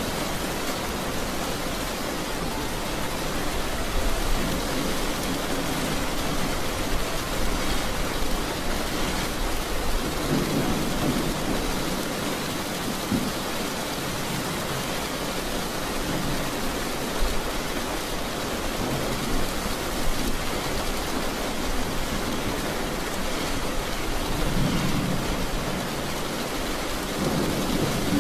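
Heavy rain on a moving car, heard from inside the cabin: a steady hiss of rain beating on the roof and windscreen, mixed with the noise of tyres on the flooded road. A deeper rumble swells a few times.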